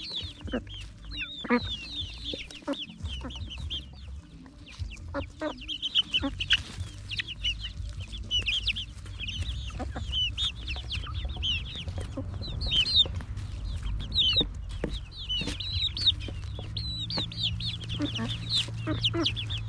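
Young chickens giving many short, high, contented chirps and trills as they forage, with occasional sharp taps of pecking on the ground.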